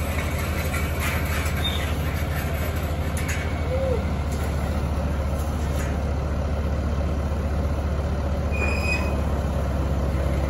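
Bobcat skid steer loaders' diesel engines running steadily, a low even drone, with a few brief faint squeaks and ticks over it.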